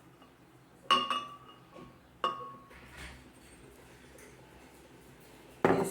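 Glass kitchenware clinking: two sharp clinks with a short ringing, about a second and a half apart, then a fainter tap.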